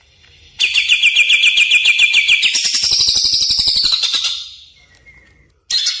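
Cucak ijo (greater green leafbird) singing: a rapid run of repeated high notes that steps up in pitch about halfway through and fades, then a new fast phrase starts near the end.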